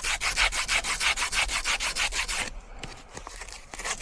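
Rapid rhythmic rasping of a hand tool at work, about six strokes a second. It stops about two and a half seconds in and starts again at the very end.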